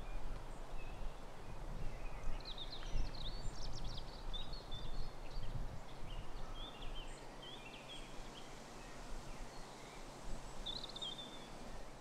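Several small woodland birds chirping and trilling, busiest a couple of seconds in and again near the end, over a low steady outdoor background noise.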